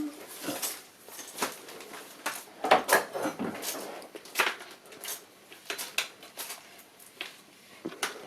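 Hard parts of a toy shop kit being handled and knocked together during assembly: a string of light clicks and clatters, busiest about three seconds in.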